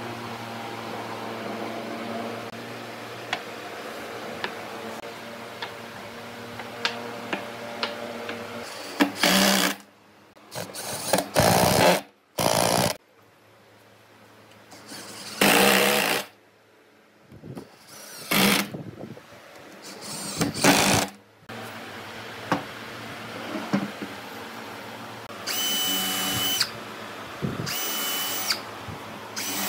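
A drill driving screws into pine in a series of short runs, each a second or less and a few seconds apart, the later ones with a high whine. Before the first run there is a steady machine hum.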